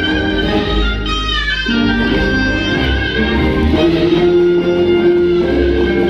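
Instrumental music for a stage performance, with a melody over a steady low bass; the melody settles on one long held note about four seconds in.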